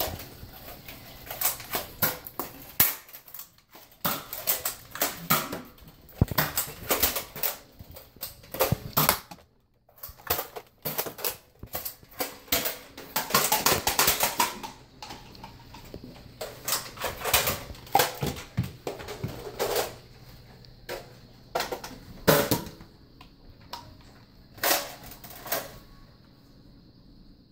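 Nerf foam-dart blasters being primed and fired: an irregular run of sharp plastic clicks and clacks, thickest about halfway through and stopping shortly before the end.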